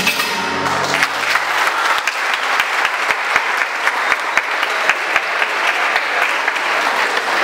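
Audience applauding. The last notes of the pasodoble music die away in the first second.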